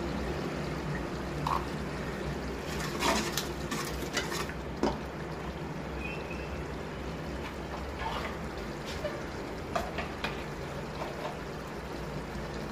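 Onion-tomato masala bubbling and sizzling in oil in an aluminium pressure cooker pot, with scattered light clicks of a metal ladle against the pot.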